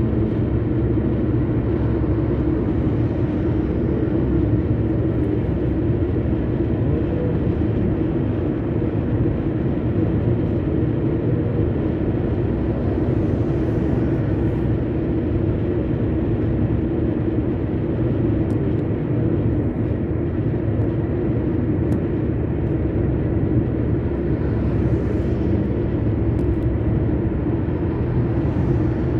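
Steady road and engine noise of a car travelling at highway speed, heard from inside the car, with tyre hiss and a low hum. The hiss swells briefly about halfway through as a pickup truck passes close alongside, and again near the end.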